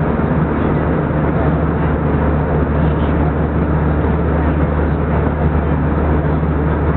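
Steady drone of an airliner cabin in flight: jet engine and airflow noise with a constant low hum.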